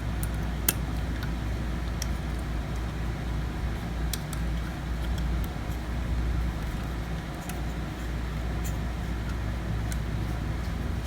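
Scattered small clicks of a screwdriver and screws as a metal drive caddy is screwed onto a laptop solid state drive, one sharper click just under a second in, over a steady low rumble.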